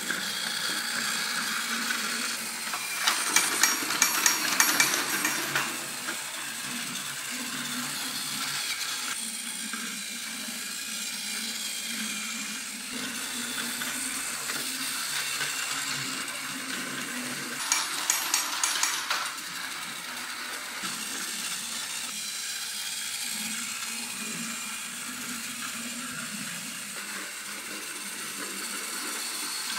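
Battery-powered Plarail toy train running on plastic track: a steady motor whir with the rattle of plastic wheels and cars. Rapid clicking comes in two short spells, about three seconds in and again about eighteen seconds in.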